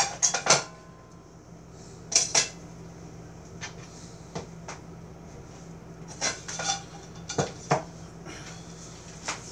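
Scattered clatters and knocks of kitchenware being handled and set down on a plastic cutting board, a metal baking pan among them. The loudest come right at the start and as a pair about two seconds in, with more spread through the rest.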